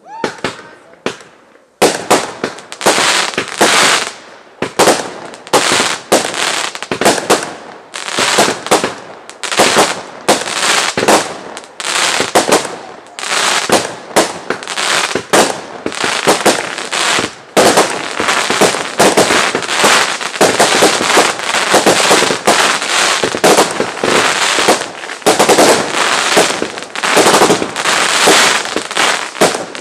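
Fireworks going off in a rapid, unbroken string of bangs and crackling bursts, starting sharply about two seconds in.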